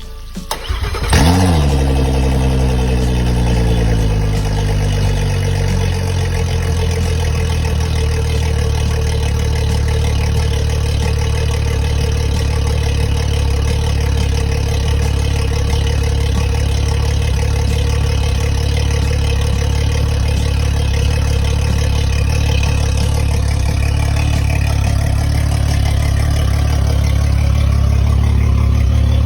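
Mercury 400 Verado outboard engine starting about a second in: it catches with a quick rev that falls back over a few seconds, then settles into a steady idle.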